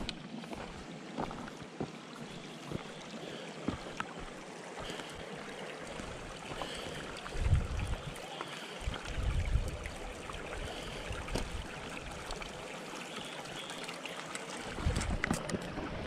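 Shallow stream trickling over rocks, with a hiker's footsteps on gravel and dirt about once a second. A few low rumbles come about halfway through and again near the end.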